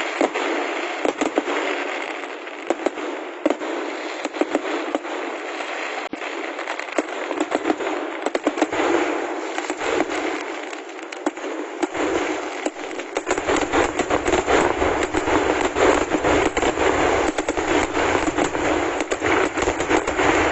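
Kerala vedikettu fireworks: a dense, unbroken string of rapid firecracker bangs merging into a continuous crackle. From about two-thirds of the way through, deeper booms join in under the crackle.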